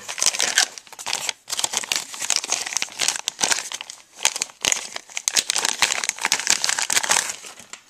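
Clear plastic bag wrapped round a network hub crinkling and rustling as the hub is lifted out of its foam packing and handled, with short pauses about a second and a half in and around four seconds in.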